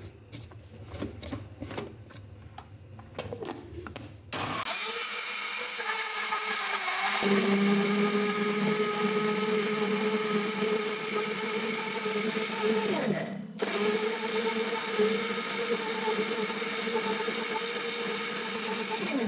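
Countertop blender puréeing sugared strawberries with no added water. After a few clicks of handling, the motor starts about four and a half seconds in and runs steadily with a hum. It cuts out for a moment about thirteen seconds in, starts again, and stops near the end.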